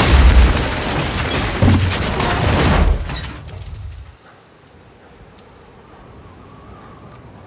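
Film sound effect of a supercar smashing into the ground after falling from a height: a loud crash of metal with several heavy hits over about three seconds. It fades out around four seconds in, leaving a low hiss with a few faint high tinkles.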